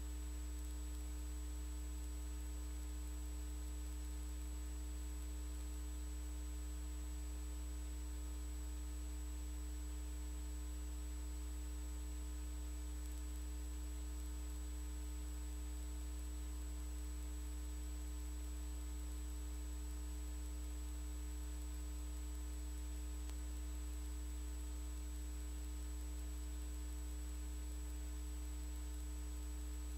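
Steady low mains hum with faint hiss and a thin high whine; no other sound.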